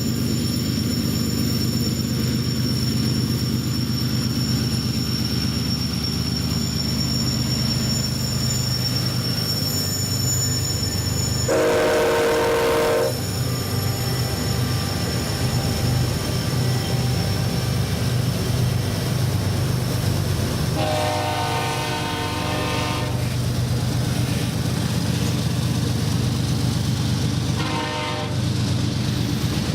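Union Pacific GE diesel freight locomotives hauling a heavy manifest train, with a steady low engine drone throughout. The locomotive horn sounds three times: about 12 seconds in, a longer blast about 21 seconds in, and a short one near the end. A high steady whine stops just before the first horn blast.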